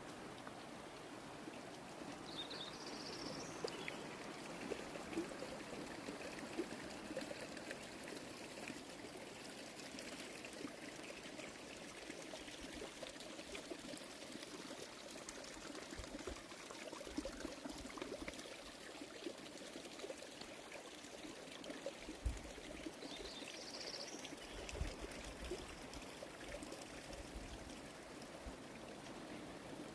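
Small stream babbling and trickling steadily. Two brief high rising chirps sound, one about three seconds in and one near 23 seconds, along with a few low bumps.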